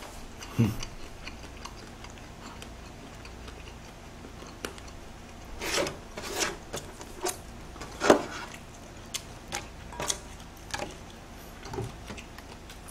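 Close-miked eating and handling of whole boiled shrimp: scattered clicks and crackles of shells, with chewing, a small cluster about six seconds in and the sharpest click about eight seconds in.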